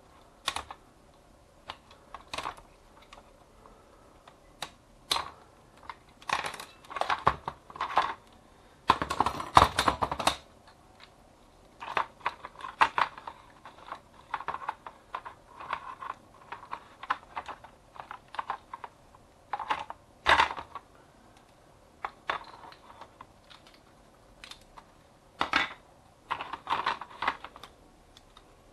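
Clicks, taps and clacks of plastic and metal parts as a copier fuser unit is taken apart by hand with a screwdriver. About nine seconds in there is a longer, denser clatter.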